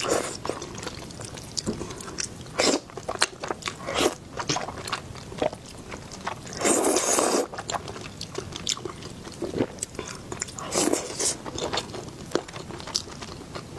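Close-miked chewing of crunchy food, with many small crisp clicks and mouth sounds. There is a louder, longer crunch about seven seconds in and another near eleven seconds.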